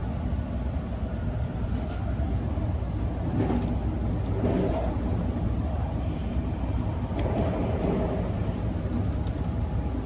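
Steady low rumble of a moving vehicle running, with a few faint knocks.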